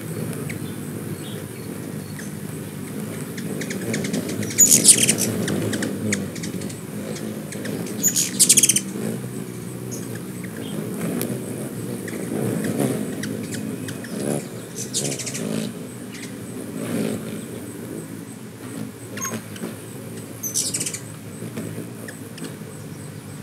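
Ruby-throated hummingbirds at a nectar feeder giving short bursts of high, rapid chattering several times, loudest about five and eight seconds in, over a low, wavering hum.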